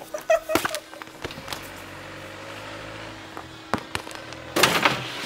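Irregular sharp knocks and clanks of tools and metal deck hardware being worked loose and handled, the loudest a short clattering burst near the end.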